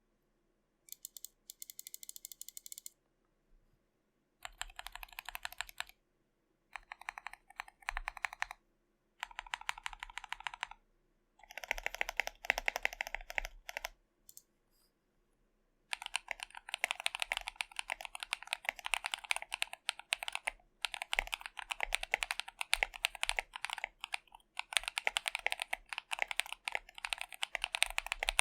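Akko ACR67 custom mechanical keyboard, with lubed Akko Vintage White switches, an FR4 plate and a stacked acrylic case damped with foam and tape, being typed on. It starts with short bursts of rapid keystrokes separated by pauses, then runs into steady, continuous fast typing from about halfway through.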